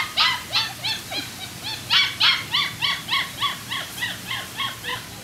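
Puppy yipping in a quick, even run of high, short yips, about four a second, that stops just before the end.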